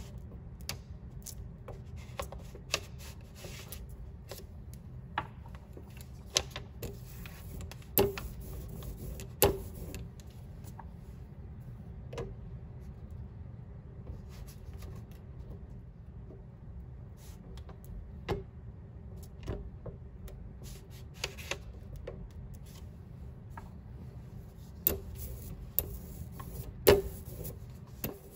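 Irregular light clicks and taps of a ball of etching hard ground being dabbed and rubbed over a heated metal etching plate, over a steady low hum. The sharpest tap comes near the end.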